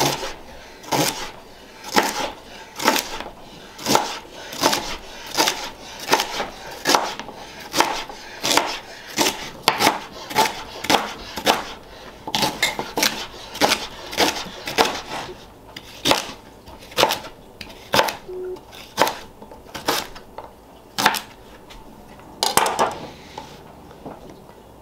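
Chef's knife chopping rhubarb stalks into small pieces on a cutting board: a steady run of knife strikes, about two a second, thinning out near the end.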